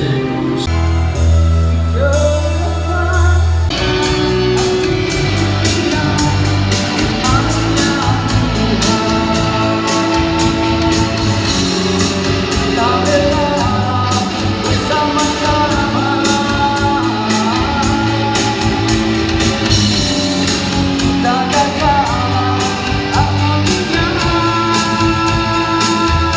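Live rock band through a PA system: a held low bass note, then drums, electric guitar and bass come in together about four seconds in, with a singer's voice over the band.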